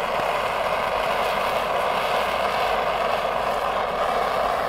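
Handheld blowtorch burning with a steady, even hiss.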